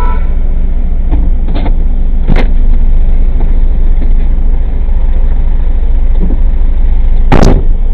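Vehicle cabin noise picked up by a dashcam: a loud, steady low rumble of engine and road, broken by a few sharp knocks or bangs, the loudest near the end.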